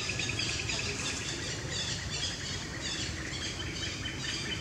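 Forest ambience of insects and birds: a fast pulsing trill that fades out about a second in, over repeated high chirps and a steady low rumble.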